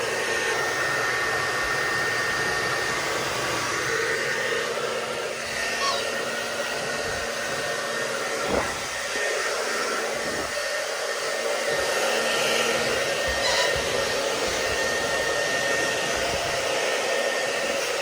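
Hair dryer blowing steadily, a constant rushing of air with a thin whine from its motor. A couple of brief knocks come about halfway through.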